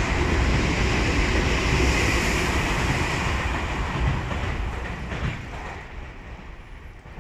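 Keio Inokashira Line 1000-series electric commuter train passing close by over a steel girder bridge, a loud rumble of wheels with a high steady tone in it. The sound fades away from about five seconds in as the last car goes by.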